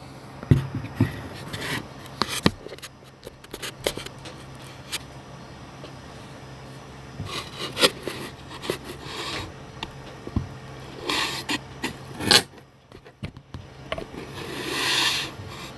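Hands working on small plastic drone camera parts and tools: scattered clicks, taps and short scrapes, with a longer rubbing noise near the end, over a low steady hum.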